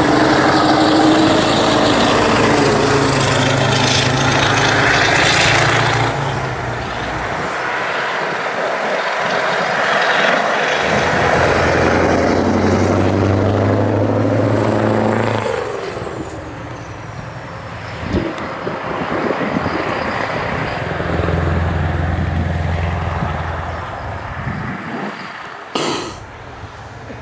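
Classic diesel trucks running hard past the trackside, their engine note swelling and dropping away three times as they go by. A high whine falls in pitch in the middle.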